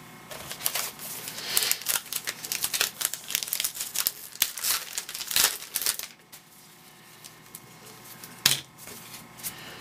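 Baseball card pack wrapper being crinkled and torn open, a dense run of crackles for the first six seconds, then quieter, with one sharp click near the end.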